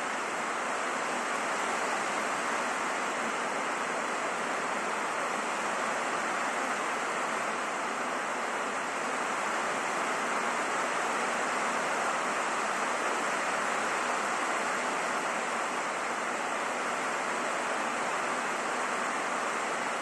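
Steady rain falling on a roof, an even hiss of drops with no change in strength.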